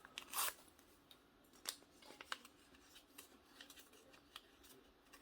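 Alcohol prep pad packet being torn open, a short rip about half a second in, followed by faint crinkles and small clicks as the pad is handled.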